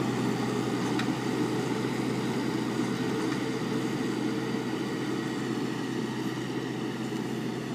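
Tractor engine running steadily under load while powering a Weed Badger 4000 hydraulic in-row weeder, whose coil-tooth rotor is tilling the soil. The sound fades gradually as the tractor pulls away, and there is a faint click about a second in.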